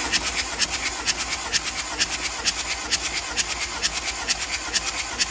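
Starter motor cranking the Ford 1.8 L Duratorq TDCi turbodiesel (QYWA) over without it firing, with an even, rhythmic beat: the engine is being spun for a cold compression test on cylinder one.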